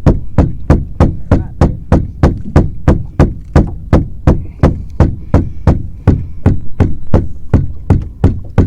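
Rapid, regular knocking, about three to four sharp knocks a second, loud and unbroken.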